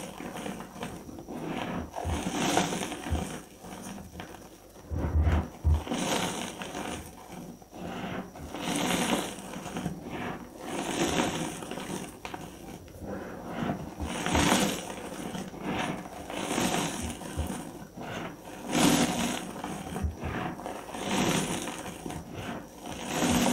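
Reformed gym chalk, dyed red, crushed and crumbled between the fingers: dusty, powdery crunches in repeated squeezes about every two seconds.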